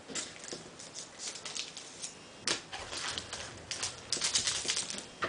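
Baseball trading cards handled and slid against one another, a string of short dry flicks and rustles that comes quicker about four seconds in.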